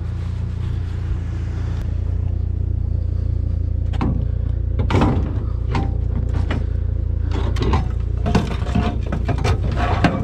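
Vehicle engine running with a steady low drone. About four seconds in, a run of sharp knocks and rattles starts and keeps going.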